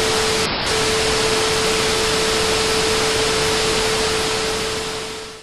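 Glitch sound effect: a steady hiss of static with a single low steady tone under it, fading out near the end.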